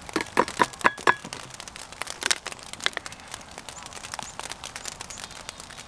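Utensils and ingredient containers being handled while crepe batter ingredients are measured out: a quick run of about six sharp clinks in the first second, then scattered clicks and crinkling.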